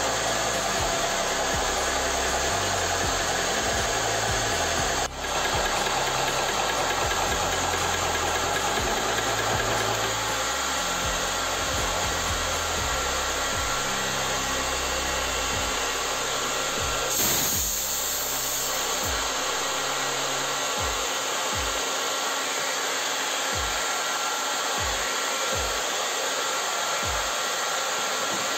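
Portable electric PCP air compressor running steadily with its cooling fan while filling an air-rifle cylinder. Partway through, the pumping stops and the cooling fan keeps running to bring the mechanism's temperature down. A short hiss of air comes about two-thirds of the way through, followed by a few soft knocks.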